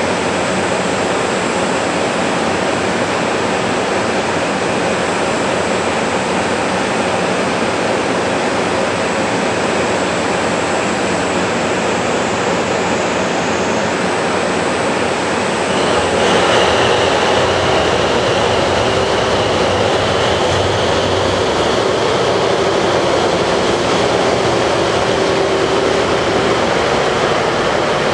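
Diesel engines and roof radiator fans of a six-car KiHa 181 series diesel express idling steadily. A little past halfway the engines throttle up hard and the train pulls away, the engine sound rising in level and holding as it accelerates.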